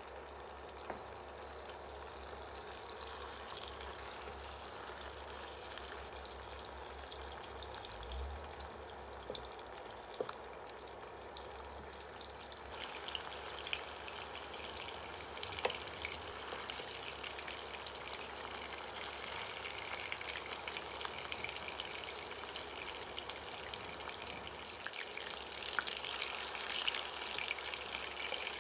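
Meatballs frying in sunflower oil in a non-stick pan: a steady sizzling hiss with scattered small pops and crackles, growing livelier about halfway through as more meatballs go into the oil.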